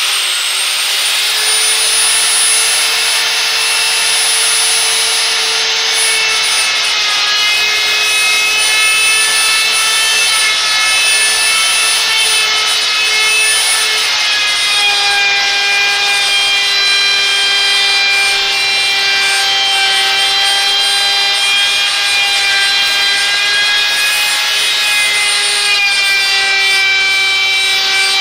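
Handheld router running at full speed with a chamfer bit, cutting a chamfer along the edge of the extension wing: a loud, steady high whine whose pitch drops slightly about halfway through.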